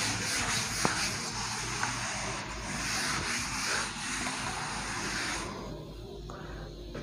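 Board eraser rubbing across a board in a steady scrubbing sound that stops about five and a half seconds in.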